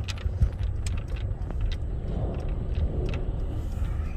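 Car interior road noise: a steady low rumble of the engine and tyres heard from inside the cabin while driving, with scattered light clicks and rattles. A lorry passes close alongside near the end.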